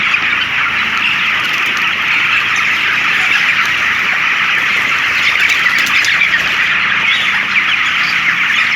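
A large flock of 27-day-old broiler chickens peeping and chirping together in a dense, steady chorus.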